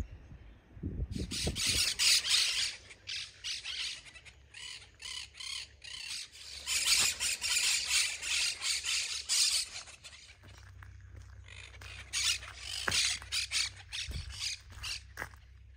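A flock of birds in the trees calling, many harsh, high calls in quick succession, thickest from about a second in to about ten seconds and again near the end.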